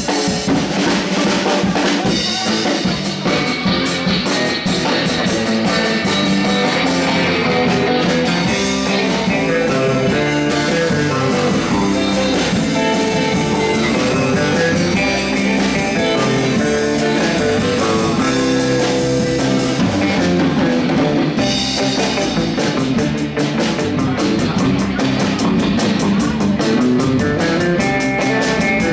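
Surf-rock band playing live: electric guitars carrying the melody of a Christmas tune over a drum kit.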